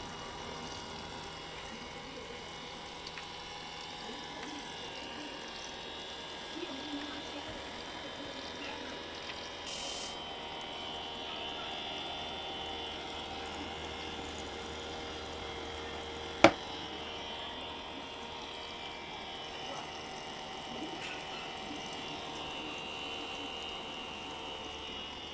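A small motor running steadily with a faint whine, and a single sharp click about two-thirds of the way through.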